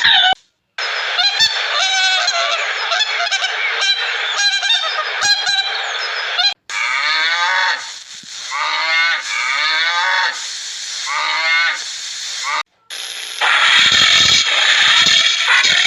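A series of animal calls in short clips joined by abrupt cuts. Repeated pitched calls come in the middle, and a loud noisy stretch follows near the end.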